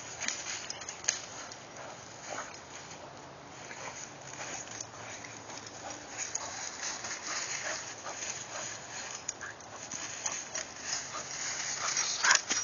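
Dry leaf litter crunching and rustling in irregular bursts under a running dog and footsteps, loudest near the end.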